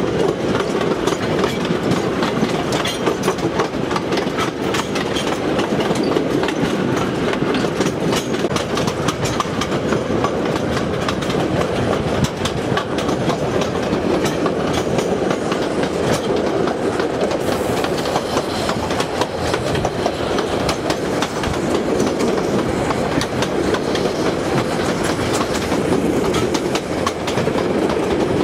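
Heritage steam train running along the line, heard from a carriage: a steady rumble of wheels on the rails with a constant stream of sharp clicks and clatter from the track.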